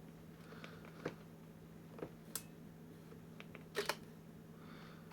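Scattered light clicks from handling a camera with a Nissin Di466 flash mounted on it, with a sharper double click a little before four seconds in, over a faint steady hum.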